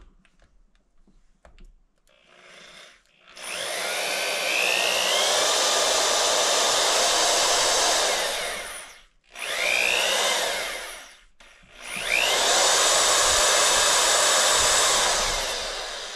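Electric drill spinning a Time-Sert counterbore cutter into the stripped drain plug hole of a 2017 Yamaha YZ450F crankcase, cutting the seat for the thread insert. It runs in three spells of a few seconds, each starting with a rising whine, with short pauses between.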